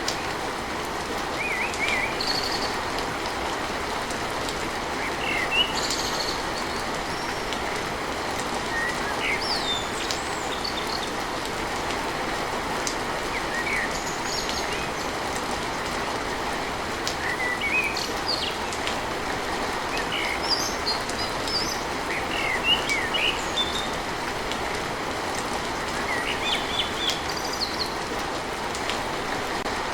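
Steady rain hiss with small birds chirping repeatedly over it, short calls every second or two.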